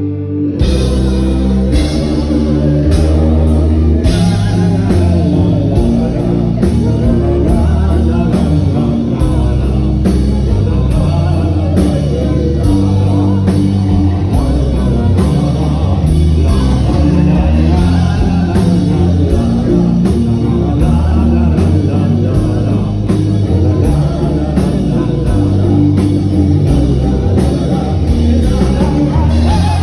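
Symphonic metal band playing live, with a male and a female singer singing together over drums, electric guitar and bass. A held chord gives way to the full band, cymbals striking steadily, about half a second in.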